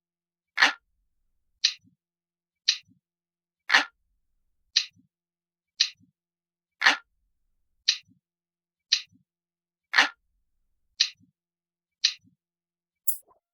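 Analog clock ticking steadily, about one tick a second, with every third tick louder and fuller. Near the end comes a sharper, higher click.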